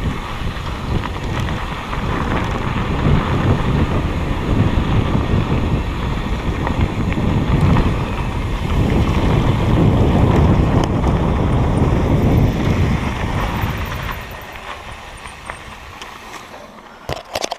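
Wind buffeting the microphone with a low rumble that eases off about 14 seconds in, then a few sharp clicks at the very end.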